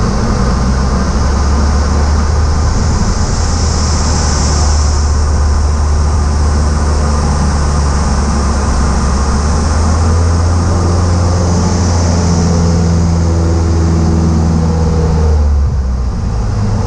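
Cessna Aerobat's piston engine and propeller droning steadily, heard inside the cockpit during an aileron roll. A rushing airflow hiss swells twice, about four and twelve seconds in, and the low drone briefly thins near the end.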